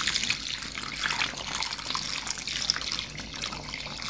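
Water running and splashing into a pot of bone-dry impatiens root balls, filling it so the dehydrated roots can soak up moisture. A steady rushing pour with bubbling at the surface.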